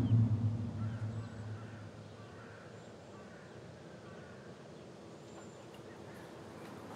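A low thunder rumble fading out over the first two seconds, then faint bird calls, short chirps and thin whistles, over a quiet background.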